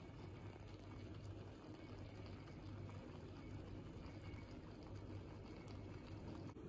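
Pot of fish paksiw simmering under a glass lid: a faint, steady bubbling hiss with a low hum underneath.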